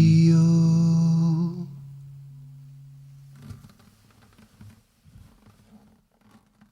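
A singer's final held note with the last acoustic guitar chord, ringing on and then fading away over about two seconds. After that come faint small rustles and knocks.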